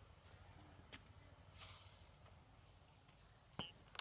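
Near silence: a faint steady low background hum, with a faint click about a second in and a short, sharp click carrying a brief high squeak near the end.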